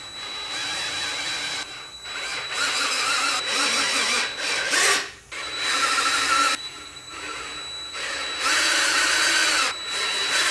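A handheld power tool running in repeated bursts of one to two seconds, stopping briefly between them, as the threaded holes in an engine block are cleaned out.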